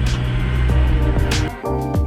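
Mini excavator's diesel engine running with a steady low hum, cut off about one and a half seconds in by background music with plucked guitar.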